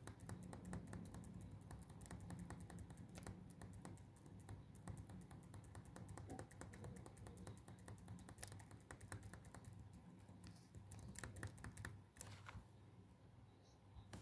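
Faint, rapid, irregular clicking of typing on a keyboard, in quick runs with short pauses, over a low steady hum.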